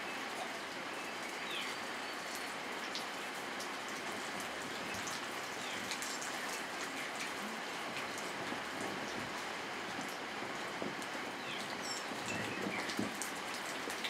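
Steady rain falling, with many individual drops ticking sharply close by.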